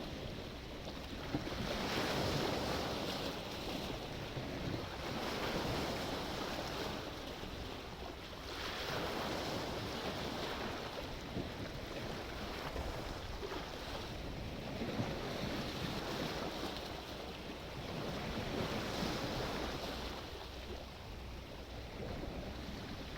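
Sea waves breaking and washing in, the surf swelling and fading every few seconds, with wind rumbling on the microphone.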